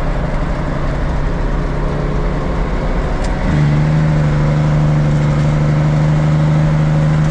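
Diesel engine of a loaded Kenworth log truck running while driving. About halfway through, the engine note steps up abruptly and gets louder, then holds a steady tone.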